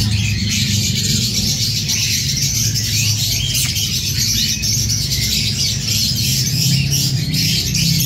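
Cockatiels chirping in many short, quick, overlapping calls, with background music running underneath.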